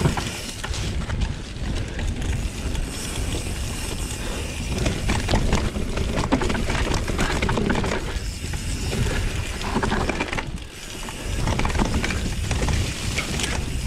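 Mountain bike descending a rough dirt trail: knobby tyres rumbling over dirt, roots and leaves while the bike rattles and clatters over bumps, with fast ratchet-like clicking from the rear hub as it coasts. The clatter runs on without a break except for a short lull near the end.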